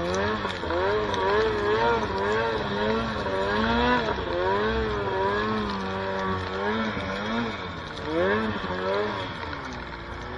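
Snowmobile engine running hard through deep powder, its revs rising and falling about once a second as the throttle is worked.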